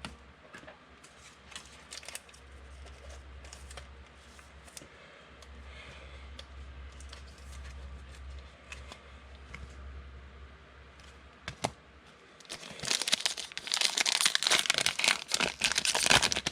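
Trading cards being handled quietly, with faint scattered clicks, then loud crinkling and tearing for a few seconds near the end as a card pack's wrapper is ripped open.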